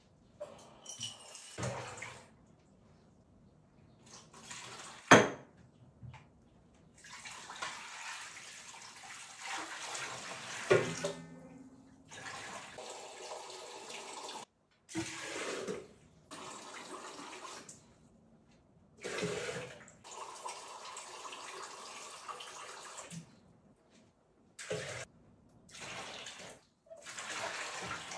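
Water running and being poured from a blender jar into a large stainless-steel basin, in several bouts of a few seconds each that start and stop abruptly, as water is added for the water-kimchi brine. A sharp knock about five seconds in is the loudest sound, with another near eleven seconds.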